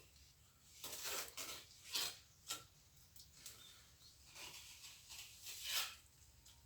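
A steel plastering trowel scraping and spreading cement mortar, in a series of short, irregular scraping strokes about once a second.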